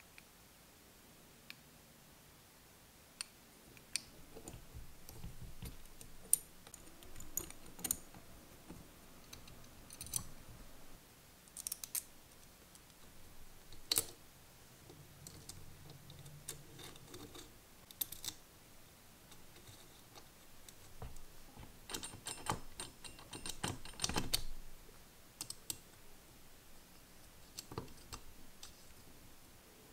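Small metal parts of a model engine kit being handled and fitted: irregular light clicks and clinks of metal pulleys and a hex key against the engine's front, with a quick flurry of clicks about three-quarters of the way through.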